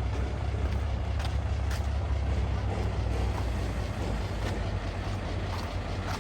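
Heavy diesel earthmoving machinery, a bulldozer or dump truck, running with a steady low rumble and a few faint clicks.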